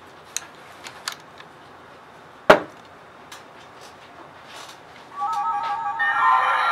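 Plastic Pororo roly-poly toy being handled: a few small plastic clicks, then one loud knock about two and a half seconds in as it is set down on the wooden tabletop. About five seconds in, as it rocks, the toy starts playing an electronic beeping melody.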